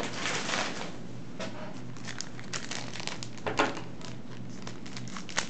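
Trading cards and a booster pack's foil wrapper being handled: a crinkle of the wrapper about the first second, then light clicks and flicks of cards being sorted.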